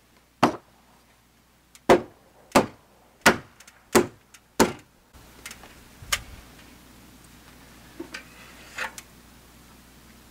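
Wooden mallet driving a wooden peg into a timber-frame purlin joint: six sharp wooden knocks about two-thirds of a second apart, then one lighter knock.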